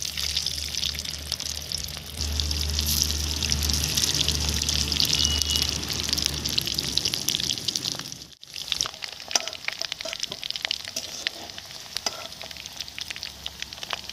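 Potatoes and boiled eggs frying in hot oil in a wok: a steady crackling sizzle with spits and pops. After a brief break about eight seconds in, the crackling is sparser with sharper pops.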